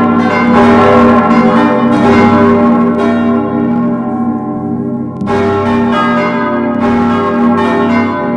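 Church bells ringing: several bells struck one after another, each new strike sounding over the long, overlapping hum of the bells before it. The sound thins a little around the middle, then a fresh strike comes in a little past halfway.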